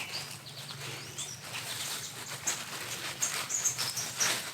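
A hand digging and rummaging in loose garden soil at the base of a potato plant: irregular scratchy rustling and crumbling of dirt as it feels around for new potatoes.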